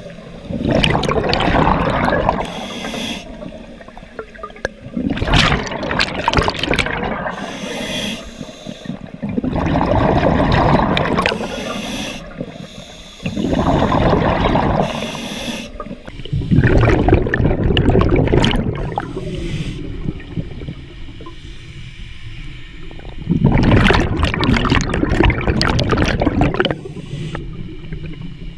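Open-circuit scuba breathing underwater: exhaled bubbles gurgling and rushing out of the regulator in bursts every three to four seconds, with quieter inhalation stretches between.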